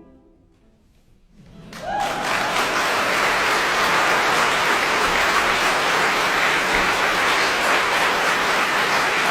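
Audience applauding. After a quiet second or so, the applause swells up quickly, about two seconds in, and holds steady.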